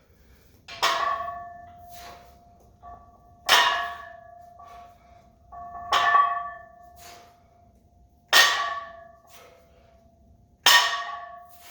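Weight plates on an Olympic barbell without collars clanking and ringing as the bar is repeatedly set down and picked up: five loud metallic clanks about every two and a half seconds, with lighter knocks between. The plates are shifting on the bar because nothing holds them in place.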